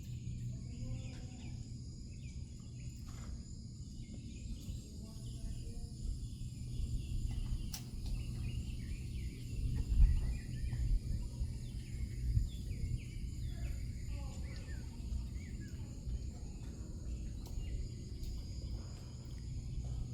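Crickets and other insects trilling steadily over a low, even hum, with faint scattered clicks, a sharp click about eight seconds in and a thump about ten seconds in.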